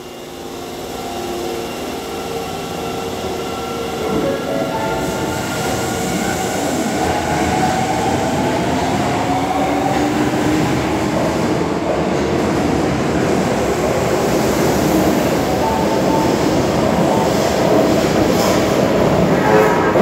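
Osaka Metro 22 series subway train pulling away from the platform, its traction motors whining in a rising pitch as it accelerates, with wheel and rail noise growing louder as the cars pass. Near the end a short train horn sounds.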